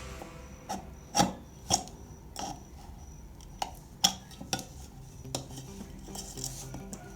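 Scraping and rasping, broken by about eight sharp, irregular clicks.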